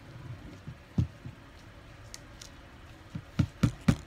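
Sharp knocks of small hard objects against a tabletop while plastic toy-figure parts and pliers are handled. There is one knock about a second in, then a quick run of four knocks near the end, at about four a second.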